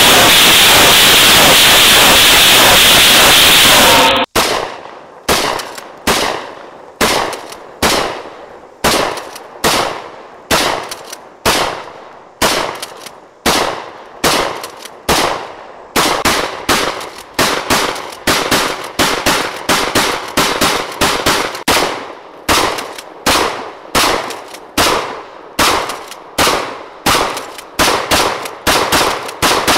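DP-12 12-gauge pump shotgun firing. It opens with about four seconds of loud, unbroken, distorted noise, then shots follow one after another at a steady pace, roughly one every two-thirds of a second, each with a short ring after it.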